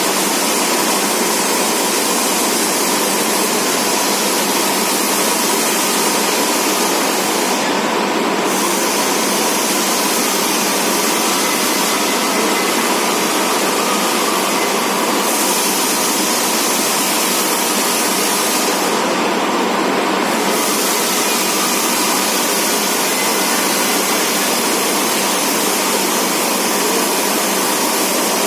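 All-gear CNC-retrofitted lathe running, a steady loud rushing hiss with a faint steady whine through it; the hiss briefly thins twice, about eight seconds in and again near twenty seconds.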